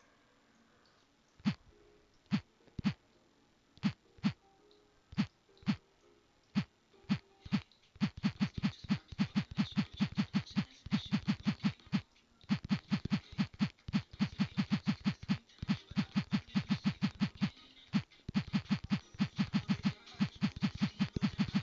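A series of sharp clicks or taps, a few scattered ones at first, then from about eight seconds in a rapid run of about five a second, broken by two brief pauses.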